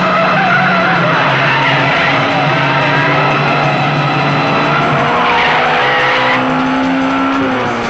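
Alfa Romeo twin-cam four-cylinder engines running hard with tyres squealing through the bends; one engine's note rises steadily in the second half as a car accelerates.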